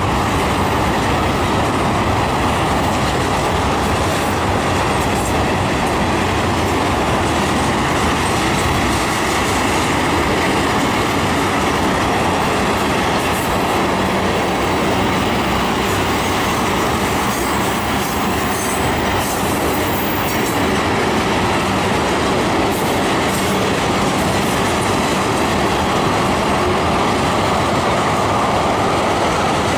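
Train cars rolling steadily past on the rails, a loud, continuous running noise.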